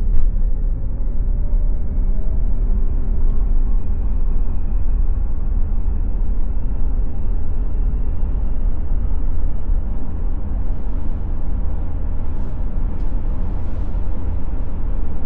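Cabin noise inside a Jaguar I-PACE electric SUV accelerating up a freeway on-ramp: steady tyre and road rumble with wind hiss, and a faint whine rising in pitch over the first few seconds as the car gathers speed.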